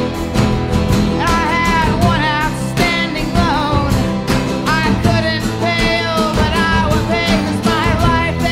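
Background music: a song with a sung vocal over guitar and a steady drum beat.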